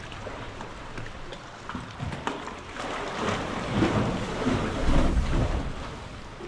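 Water lapping and sloshing around a moving sea kayak, with small splashes and wind rumbling on the microphone; it swells louder for a couple of seconds in the middle.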